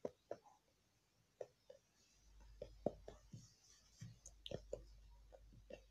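Faint, scattered soft clicks and taps, about a dozen, of small objects being handled close to the microphone, over a faint low hum that comes in about two seconds in.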